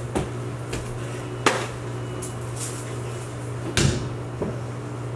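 A ball bouncing off the floor and walls indoors: several sharp thuds, the loudest about a second and a half in and again near four seconds, over a steady low hum.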